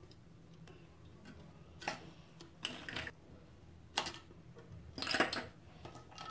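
Ice cubes dropped with metal tongs into a glass of milky drink: a handful of separate light clinks of ice and tongs against the glass, a second or so apart.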